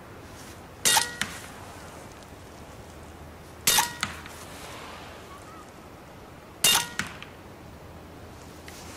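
Huben K1 6.35 mm PCP semi-automatic air rifle firing three single shots about three seconds apart. Each is a sharp crack with a brief ring, followed by a fainter click about a third of a second later.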